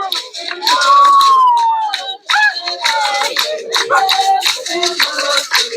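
Traditional Botswana music: voices singing over steady shaker rattles, opening with a long high held note that rises and falls before shorter sung phrases take over.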